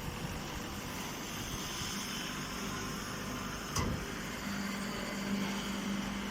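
Hay baling machine running steadily, with a single knock about four seconds in and a low, steady hum starting shortly after.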